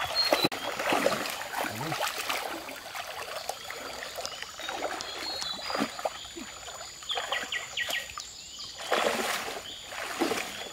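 Feet wading through shallow stream water, a splash with each stride, loudest about a second in and again near the end. Short runs of high chirps sound in the background.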